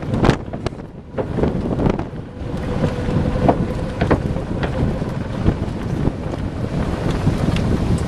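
Wind buffeting the microphone: a steady low rumble broken by frequent short crackles.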